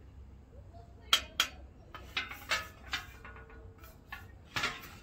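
Kitchenware being handled: a run of about eight sharp clinks and knocks, the loudest a little over a second in.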